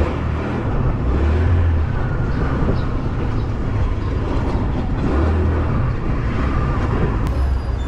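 Motorbike riding along a city street: engine running under steady road and traffic noise, with wind rumbling on the microphone in gusts.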